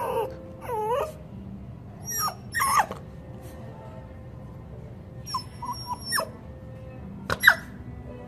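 A puppy's high-pitched yips and small barks in short clusters: at the start, two to three seconds in, around five to six seconds, and the loudest, sharpest one near the end.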